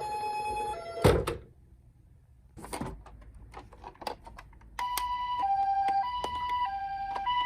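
Toy ambulance minicar's electronic two-tone siren, alternating high and low notes, cut off by a loud thunk about a second in. After a few quieter seconds with light knocks, the two-tone siren starts again, each note lasting about half a second.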